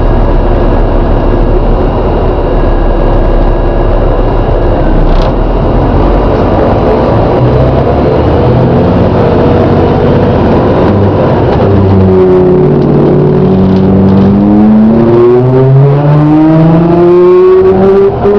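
Volvo B7TL double-decker bus running on the move, its engine and drivetrain loud throughout. In the second half, pitched tones slide down and then rise steadily as the bus slows and pulls away again, with the groaning noise that marks this bus as having a fault.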